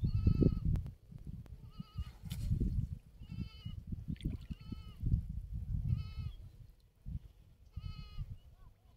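An animal calling again and again: a short, high-pitched cry about every second and a half, six times, over irregular low rumbling.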